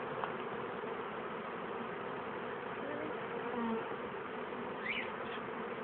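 Honeybees buzzing in large numbers around an opened hive: a dense, steady hum, with single bees droning past close by in short rising and falling notes.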